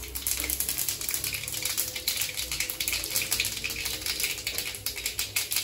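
Mustard seeds and dried red chillies spluttering in hot oil in a kadai: a dense, steady crackle of tiny pops, the tempering stage of the dish.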